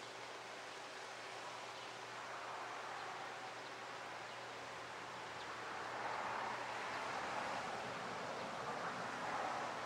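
Steady rushing background noise with a faint low hum underneath, swelling louder twice in the second half.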